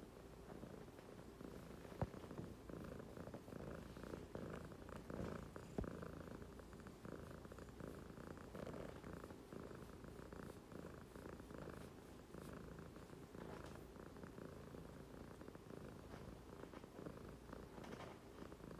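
Siamese cat purring steadily while its head is rubbed. Two sharp clicks stand out, about two and six seconds in.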